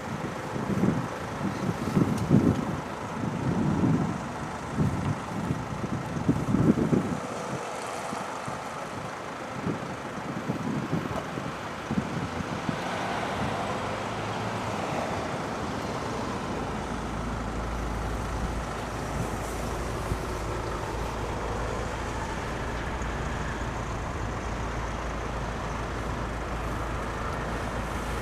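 DR1A diesel multiple unit's engine running, a steady mechanical drone; irregular low rumbles fill the first seven seconds, and a constant low hum sets in about halfway through.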